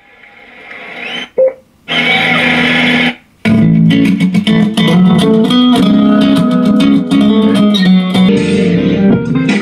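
Music played through a small Archeer A210 Bluetooth speaker as tracks are skipped. One song fades in and cuts off after about a second, a snippet of another plays briefly, and from about three and a half seconds in a guitar track plays on loudly.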